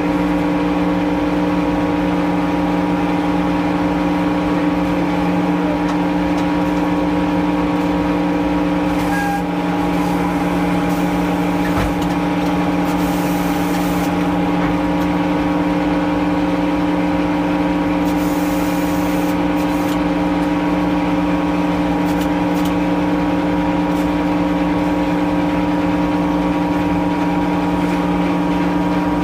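Frick sawmill running at a steady speed, a loud, unchanging machine hum that holds one pitch.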